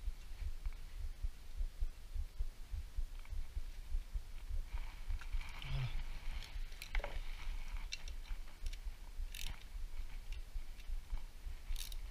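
Light, scattered clicks and knocks of hand tools and metal engine parts being handled while the cam chain tensioner is fitted and its bolts snugged, over a low, uneven rumble.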